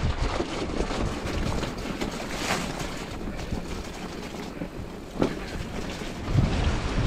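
Electric mountain bike rolling over a rocky dirt trail: tyre and bike rattle noise with a couple of sharp knocks, about two and a half and five seconds in. Heavy wind rumble on the microphone is strongest at the start and again near the end.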